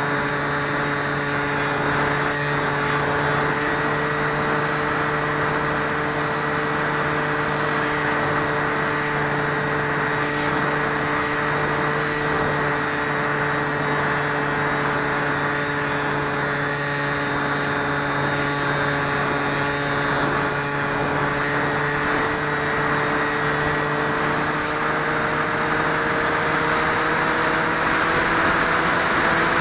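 Electric motor and propeller of a Swift 2 FPV flying wing, heard through its onboard camera microphone with rushing air: a steady whining drone that rises a little in pitch near the end as the throttle opens.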